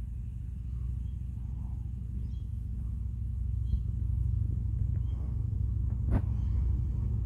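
Low, steady rumble of a distant Iveco Stralis garbage truck's diesel engine as it works at a roadside wheelie bin, growing slightly louder, with a single sharp knock about six seconds in.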